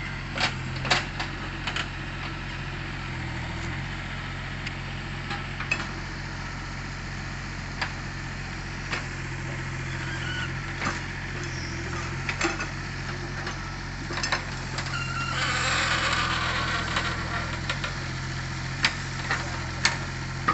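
Excavator engine running steadily, with scattered sharp clanks and knocks. About three-quarters of the way through, a rush of hissing noise lasts a couple of seconds.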